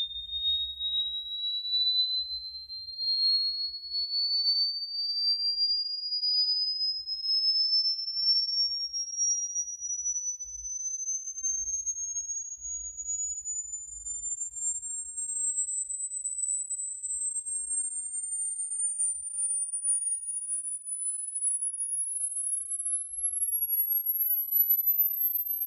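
A sine-wave sweep played through a pair of Jensen CS315 loudspeakers for a frequency-response measurement of their GRS tweeters. It is a single pure high tone gliding slowly and steadily upward to a very high pitch, with a fainter tone falling against it that crosses it about halfway through.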